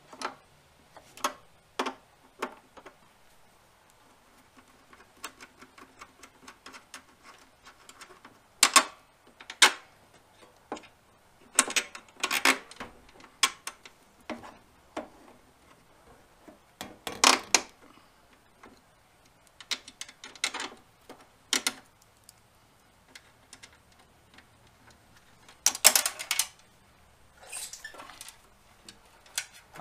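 Irregular metallic clicks and clinks of a small wrench loosening and tightening the lead nuts on a Hobart MIG welder's polarity terminal block, as the leads are swapped from flux-core to solid-wire gas polarity. A quick cluster of louder clinks comes near the end.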